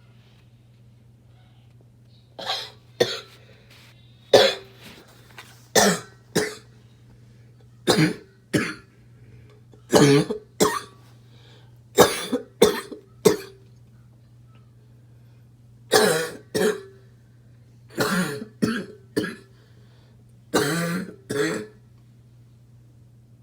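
A smoker's harsh barking cough, coming in fits of one to three coughs roughly every two seconds. It starts about two seconds in, with a short pause past the middle.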